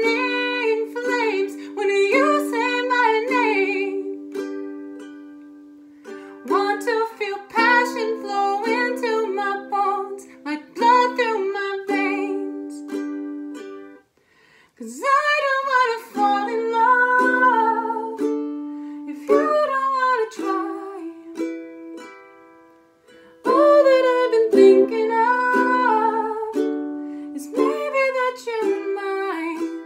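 A ukulele strummed in a slow ballad with a woman singing over it in phrases; between phrases the strummed chords ring out and fade.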